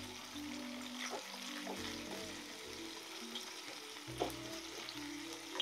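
Lionfish fillets frying in oil in a non-stick pan, a steady sizzle with a few sharp taps of a spatula against the pan. Soft background music with low held notes plays underneath.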